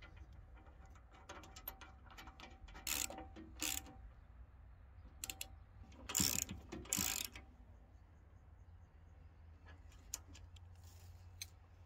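Steel quick-hitch coupler being fitted and bolted on: light metal clicks and rattles, with two pairs of short, louder noises about three and six seconds in.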